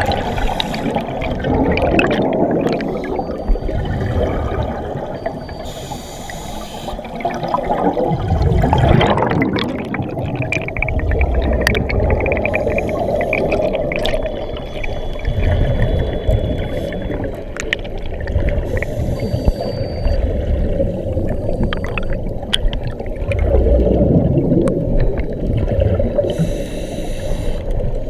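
Underwater sound of a scuba dive in a strong current: a continuous rushing, gurgling water noise with low rumbles. Bursts of hiss from a diver's exhaled regulator bubbles come every six or seven seconds.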